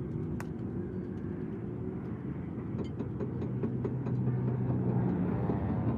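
A motor running steadily with a low hum, with scattered light clicks and taps.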